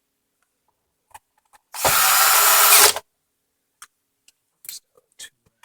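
Power drill driving a screw into the Roomba's plastic housing in one burst of about a second, its clutch turned down low so as not to strip the plastic threads. A few light clicks of handling come before and after.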